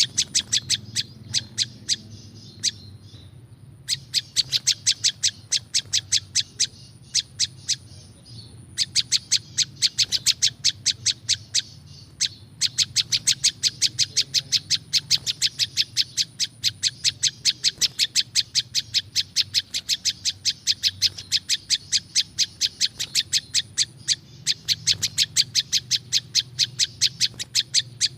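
Prinjak lumut, a small Indonesian prinia-type songbird, calling in rapid trains of sharp, high chip notes, several a second, in long bouts broken by short pauses: the bird's natural call as used for luring wild birds of its kind.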